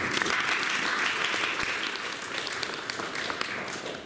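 Audience applauding. The clapping starts all at once and dies away near the end.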